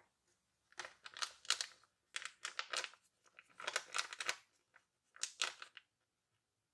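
Paper rustling and scraping as a drawn paper card is slid out of a paper pocket and handled. The rustling comes in four separate bursts of about a second each.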